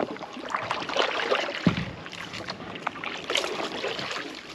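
Water splashing and sloshing around a Nucanoe Frontier 12 fishing kayak, with many small splashes and a hollow knock on the hull about a second and a half in.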